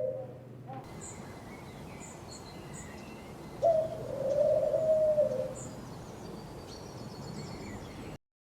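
Pigeon cooing: a low drawn-out coo trailing off at the start and another long coo about three and a half seconds in, over faint high chirps of small birds. The sound stops abruptly near the end.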